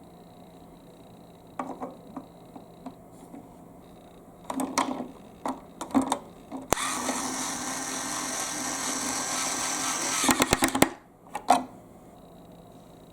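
Plastic marble-run parts clicking and knocking, then an electric drill starts suddenly and runs steadily for about four seconds before stopping with a brief clatter.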